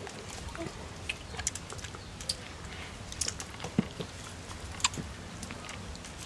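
A baby monkey eating soft fruit from a person's palm: small wet chewing and lip-smacking clicks, with a couple of louder clicks about four and five seconds in.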